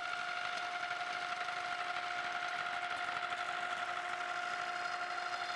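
DeWalt cordless trim router running in a 3D-printed lathe attachment, its bit cutting a spinning wooden dowel down to round as a cordless drill turns the dowel through: a steady high whine with a rough cutting rasp over it.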